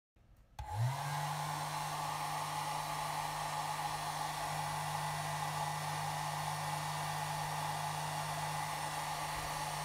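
Braun Satin Hair 1 hair dryer switched on about half a second in, its motor spinning up, then running steadily with a low hum under the rush of blowing air as it is aimed at the vinyl iPad skin.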